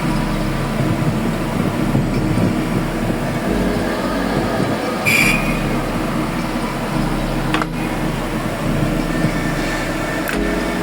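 Metalworking machinery running with a steady hum and drone, with a brief high-pitched squeal about five seconds in and a sharp click or two later.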